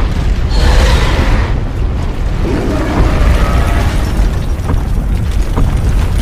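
Monster-fight soundtrack from an animation: a loud, constant deep rumble with booming hits. Over it come pitched creature screeches, one about half a second in and another around two and a half seconds in.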